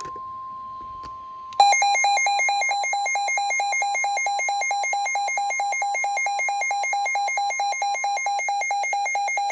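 Emergency weather alert tones: a steady single tone near 1 kHz, then about 1.5 s in a loud, harsh electronic alarm takes over, warbling rapidly at about five pulses a second. It signals an incoming severe thunderstorm warning.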